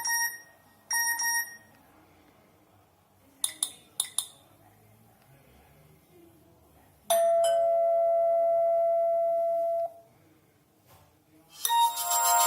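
Nokia N92 alert tones and ringtones played one after another through the phone's loudspeaker. First come two brief ding-dong chimes about a second apart, then a few quick beeps, then a steady tone held for about three seconds, and near the end a melodic ringtone starts.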